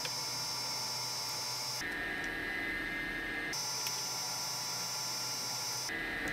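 Steady electrical hum and hiss with no distinct events; its tone changes abruptly three times, about two, three and a half and six seconds in.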